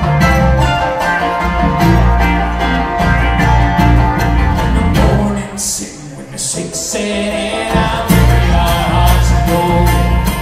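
Bluegrass string band playing live: acoustic guitar, banjo, upright bass and mandolin. About halfway through, the bass drops out and the music thins briefly, then the full band comes back in.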